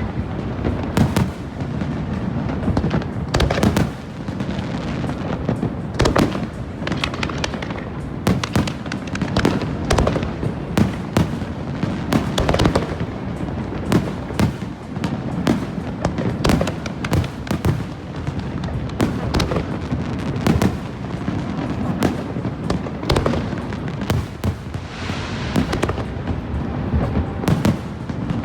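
Aerial fireworks bursting in rapid, continuous succession, sharp bangs and crackles layered over a constant rumble of overlapping booms.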